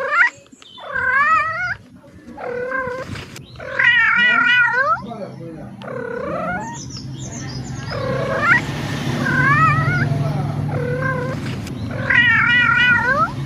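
A domestic cat meowing over and over: about seven long, drawn-out meows a second or two apart, several with a wavering pitch. A low steady hum runs underneath from about halfway through.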